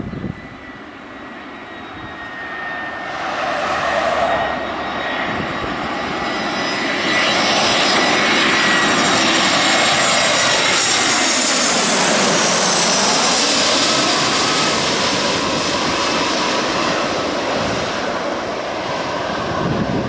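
Airbus A320 jet engines on final approach, passing low overhead. The noise builds over several seconds, stays loud with a high fan whine and a sweeping, phasing tone as the airliner crosses overhead, then slowly eases off as it heads for the runway.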